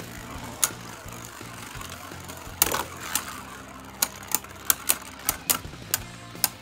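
A 3D-printed Beyblade and a Tempest Wyvern spinning down in a plastic stadium, knocking together with sharp plastic clicks: one about half a second in, a louder hit near three seconds, then a quick run of about ten clicks over the last two and a half seconds as the two tops rub and clash.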